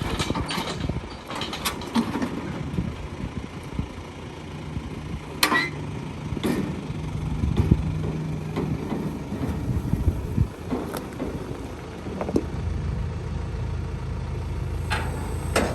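Tractor engine idling, with a steady low hum and about eight scattered sharp knocks and clanks.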